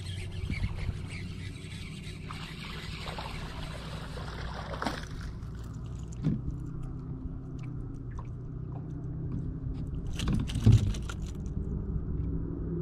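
A bass being fought and landed from a small fishing boat: water splashing and a few knocks over a steady low hum, with the loudest sound a sharp thump about eleven seconds in as the fish comes aboard.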